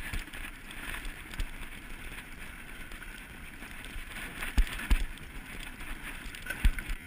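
Mountain bike climbing a stony dirt trail under heavy pedalling: a steady gritty crunch of tyres, sand and the tensioned chain, with three sharp knocks in the second half.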